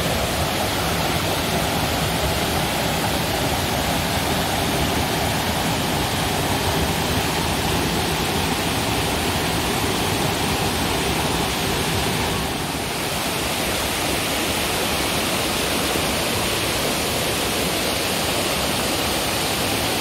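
Waterfall: a steady, loud rush of falling water that dips briefly about two-thirds of the way through.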